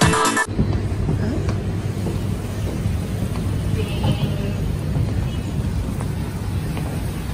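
Electronic dance music cuts off abruptly half a second in, giving way to a steady low rumble of open-air city ambience with a few faint clicks.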